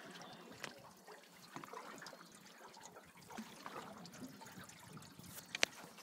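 Water trickling and dripping quietly around a rowboat, with scattered light ticks and one sharp tap near the end.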